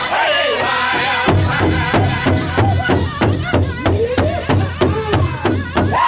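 Pow wow drum group singing a chicken dance song. Several voices sing together, and a little over a second in the big drum comes in, beaten steadily at about four strokes a second under the singing.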